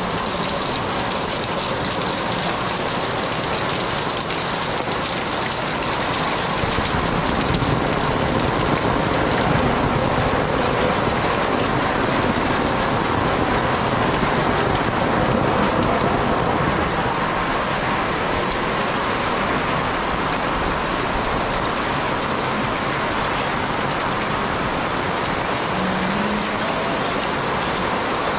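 Torrential rain falling steadily, drumming on the alley's pavement and on the tarps and awnings overhead.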